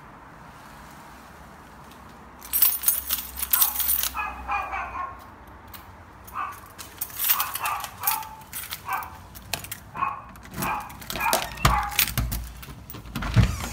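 A dog barking in repeated short bursts behind a door, with keys jangling and a lock and door handle clicking as the door is opened. Two low thumps from the door come near the end.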